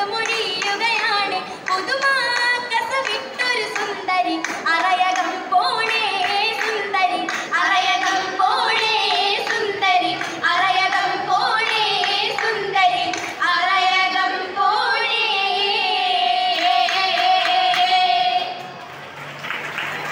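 A group of girls singing an Oppana song in unison, with hand clapping. The song ends on a long held note that breaks off shortly before the end.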